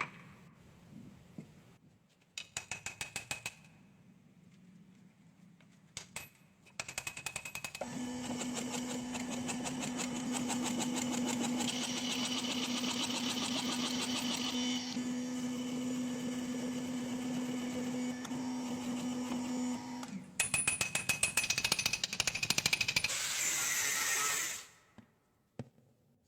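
A workshop power tool running in bursts, each a fast, rapid clatter of strikes. The longest run lasts about twelve seconds, carrying a steady hum under the clatter, and the sound stops abruptly near the end.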